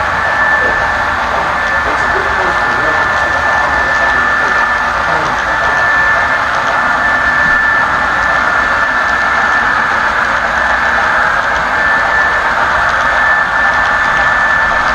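HO scale model freight train rolling past close by: a steady whirring rumble of wheels on the rails, with a constant high whine running through it.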